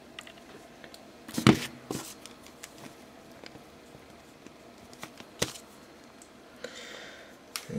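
Handling noise: a few sharp clicks and knocks of things being moved about, the loudest about one and a half seconds in, over a quiet room.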